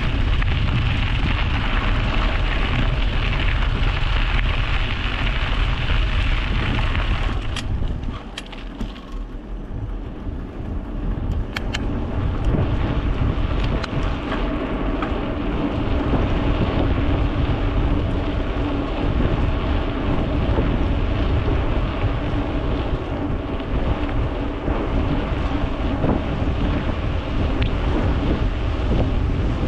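Wind buffeting and rolling tyre noise on a GoPro action camera mounted on a moving bicycle: a steady loud rush with deep rumble. It eases off for a couple of seconds about eight seconds in, where a few sharp clicks come through.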